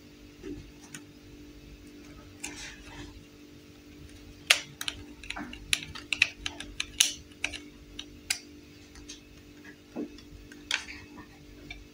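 Scattered clicks and taps of hard plastic toys being handled, with a knife tip clicking against the screw and battery cover on the back of a plastic toy phone; the clicks come thickest in the middle of the stretch.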